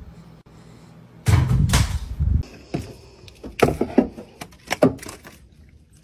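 A stick held crosswise in a golden retriever's mouth knocking against a car's open rear door frame: a string of sharp wooden knocks, coming after a loud, noisy stretch of about a second.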